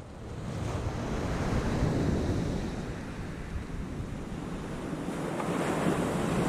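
Sea surf washing onto the beach, swelling and easing, with wind buffeting the microphone as a low rumble.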